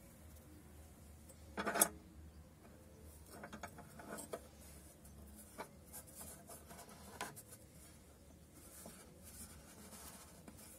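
Gloved hands handling the steel vise clamp and lever of a Verto angle grinder stand: one sharp clack about two seconds in, then light clicks and rubbing as the lever is moved.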